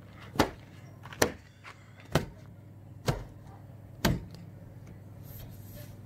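Five short, sharp clicks or knocks, about one a second, over a faint steady low hum.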